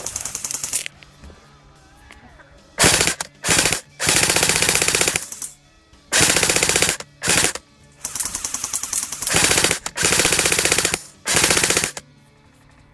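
Airsoft rifle firing on full auto: a string of about eight or nine loud bursts of rapid shots, each from a fraction of a second to about a second and a half long, with short pauses between them.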